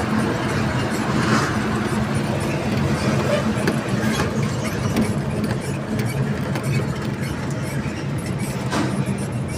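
Heavy diesel trucks running in slow, congested traffic: a steady low engine drone, with a brief hiss about a second in.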